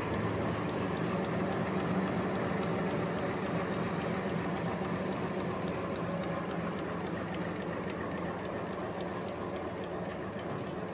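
Automatic napkin production and packing line running: a steady, even mechanical hum and whir from its rollers and conveyors.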